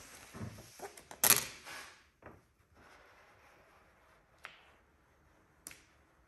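Vinyl hood decal being worked by hand: a microfiber towel rubbing over the vinyl and the loose sheet rustling, loudest in a short burst about a second in. After that it goes quiet, with a few faint ticks.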